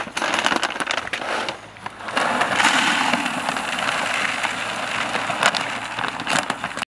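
Dry pet food kibble pouring from a plastic sack into a plastic bucket: a steady rattle of pellets from about two seconds in, after rustling and knocks as the sack is handled.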